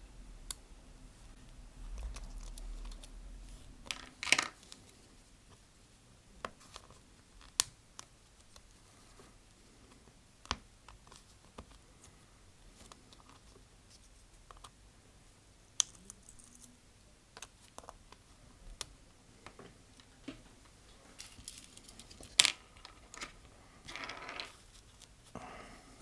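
Small tools and tiny phone parts clicking and tapping, with a few brief scrapes, as the Touch ID home button is worked off one iPhone 5s display assembly and onto another. The sharp clicks come singly, a few seconds apart.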